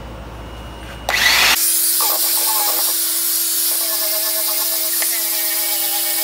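Wagner Paint Eater, a corded electric abrasive-pad tool, spinning up about a second in and then running steadily with a whine and hiss as it buffs corrosion off a steel axle.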